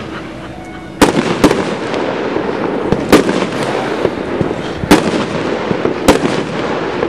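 A 200-gram 12-shot consumer fireworks cake (Pyro King Party Animal) firing: five loud sharp bangs at uneven gaps of one to two seconds, with a fainter pop among them, over a steady rushing noise.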